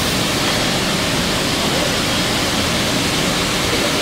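Steady rushing air noise from a robotic brake-disc spray-painting booth, constant throughout.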